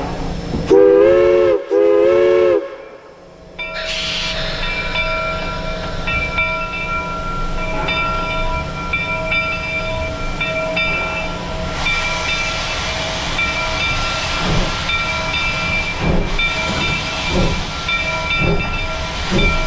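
Steam whistle of the Polson 70 steam locomotive sounding two blasts, followed by a steady loud steam hiss. Near the end, slow exhaust chuffs begin at about two a second as the locomotive starts away.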